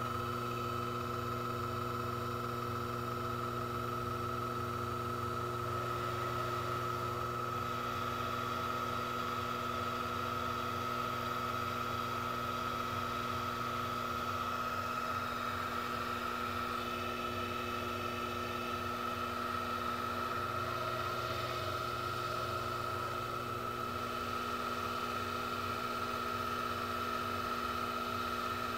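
Sherline CNC chucker lathe running a turning program: the spindle motor and stepper-driven axes give a steady hum with a high whine while the tool cuts a small part.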